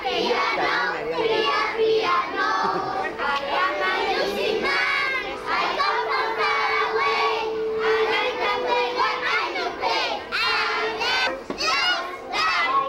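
A crowd of young children shouting and chattering over one another in high voices, with a steady tone held for a couple of seconds near the middle.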